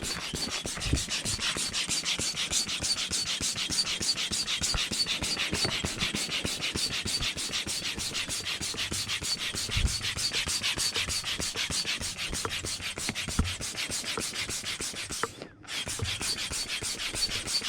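Manual air pump being worked fast to inflate an inflatable boat: an even run of rapid whooshing strokes, several a second, with a brief pause about fifteen seconds in.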